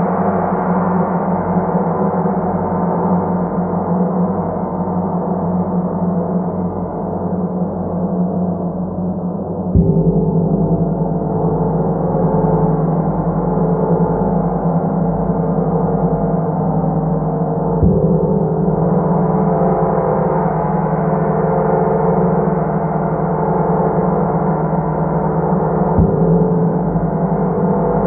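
A large gong played with a felt-headed mallet: a continuous shimmering, swelling ring of many tones, renewed by three soft strikes about eight seconds apart.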